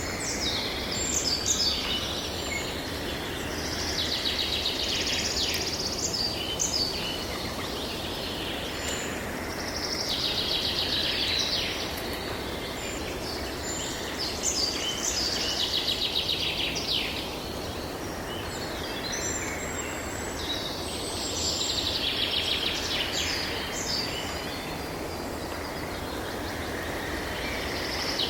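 Songbird singing in phrases of two to three seconds, repeated about every five to six seconds, over a steady background of wind.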